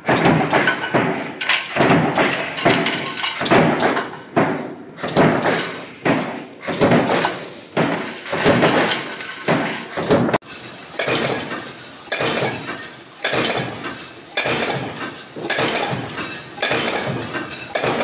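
Sheet-metal stamping presses running, with repeated metallic clanking and banging about one and a half to two times a second, each hit ringing briefly. About ten seconds in the clanking becomes duller.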